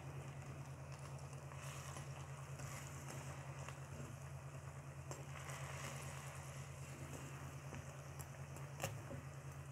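Water simmering in a pan while a slotted metal spoon stirs and pushes instant noodle cakes, over a steady low hum; one sharp click near the end.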